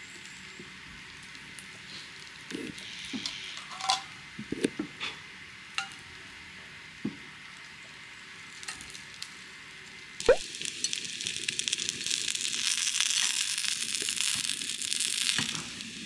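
Battered chicken pieces (karaage) frying in a pan on a portable gas stove. Tongs click and knock against the pan as the pieces are turned. After a sharp knock about ten seconds in, the hot oil sizzles and crackles loudly.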